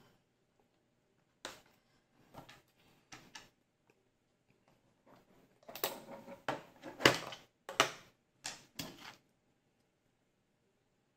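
Clicks, taps and scrapes of a yellow plastic toy casing being handled and screwed together with a small screwdriver: a few separate clicks, then a quick run of clicks and scrapes from about six to nine seconds in.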